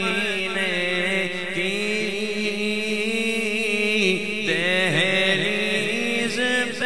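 A man singing an Urdu naat (devotional kalam) into a microphone, drawing out one long, ornamented, wavering note before starting a new phrase about two-thirds of the way through.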